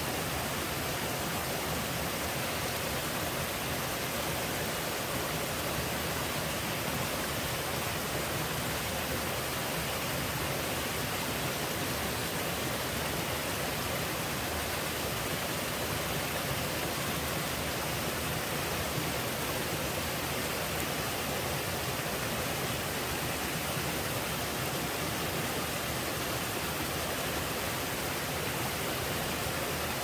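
Small two-tier waterfall on a mountain stream, water falling and splashing over rocks into a pool with a steady, unchanging rush.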